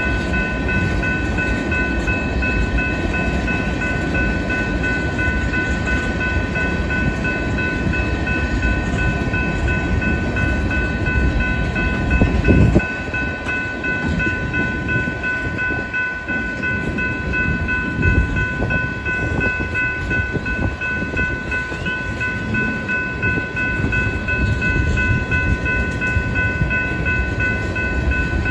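Freight train of tank cars rolling past: a steady rumble and rattle of steel wheels on the rails. Steady high ringing tones of the grade-crossing bell sound over it, and there is one louder brief thump about twelve seconds in.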